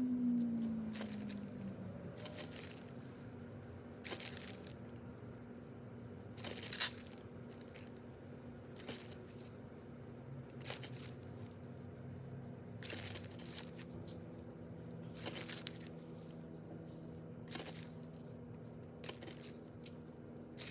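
Beach sand being sprinkled onto potting soil in short gritty pours, about a dozen of them, one every second or two, with a sharper one about seven seconds in.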